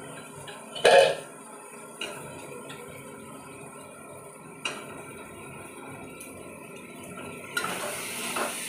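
Spatula knocking and scraping in a kadai as fried potato pieces are stirred into the masala: one loud clank about a second in and a couple of lighter knocks. Near the end, sizzling and stirring clatter rise as the mixture is turned over the heat.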